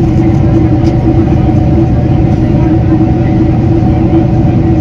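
Steady cabin drone of a Boeing 767-300ER in flight: its General Electric CF6 turbofans and the airflow give a constant rushing noise with a few steady humming tones in it.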